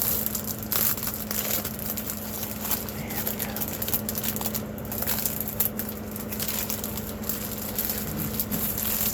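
Plastic packaging of a diamond-painting kit crinkling and rustling irregularly as it is worked open by hand, over a low steady hum.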